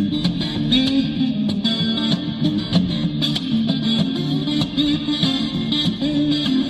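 Background music: an electric guitar track with strummed chords.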